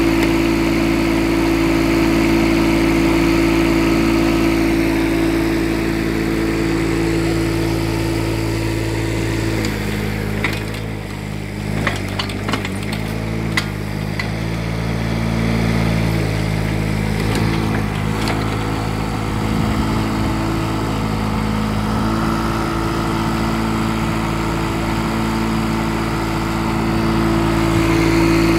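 Kubota K008 mini excavator's diesel engine running steadily. About a third of the way in the engine note drops lower for several seconds, with a few sharp knocks, then rises back to its steady working note.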